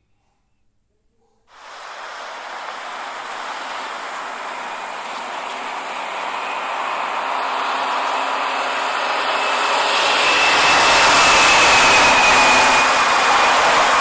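An approaching large vehicle's rushing noise, starting about a second and a half in and growing steadily louder, with a faint steady whine over it.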